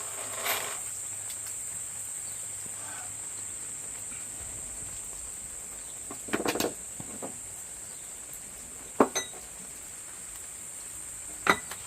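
Crickets trilling steadily at a high pitch, with a few scattered sharp metallic clicks and knocks of hand tools on the mower's steering linkage.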